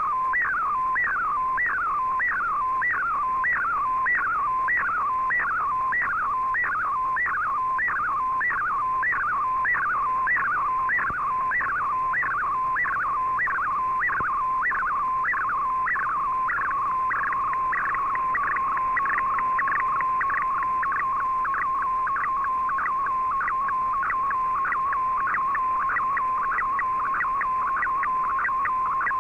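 Data-mode picture signal on shortwave, decoded by fldigi as an MFSK image transmission. It is a steady whistling tone with a rapid repeating falling sweep over it, about two a second, that grows denser about halfway through as the image is sent line by line.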